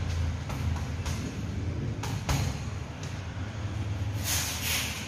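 Boxing gloves striking a double-end bag: a few irregular slapping hits, the strongest about two seconds in and a quick pair near the end, over a steady low hum.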